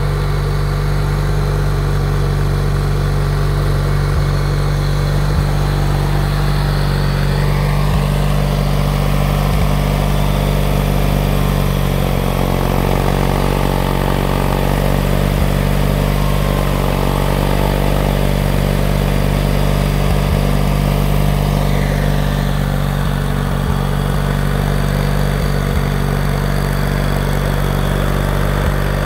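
Simplicity Sovereign garden tractor's engine idling steadily, with a higher steady whine added for about fifteen seconds in the middle.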